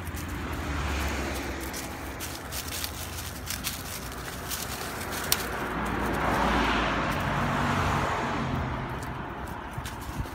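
A passing vehicle, swelling to its loudest about two-thirds of the way through and then fading, over a steady low hum. Dry fallen leaves crackle and rustle under a dog's paws.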